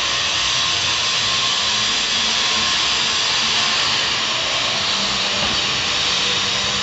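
Stick-welding arc hissing steadily as the electrode burns along a vertical capping pass on steel.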